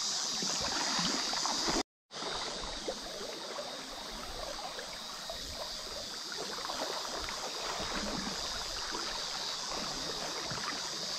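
River water running and trickling over shallow rocky riffles, a steady rushing hiss. The sound cuts out completely for a moment about two seconds in, then resumes.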